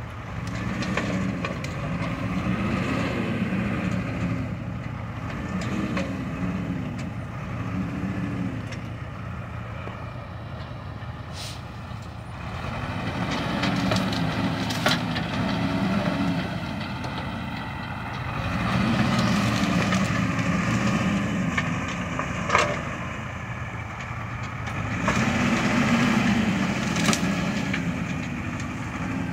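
Heavy vehicle engine revving up and falling back over and over, in clusters of quick swells with quieter gaps between them, with a few sharp cracks or knocks.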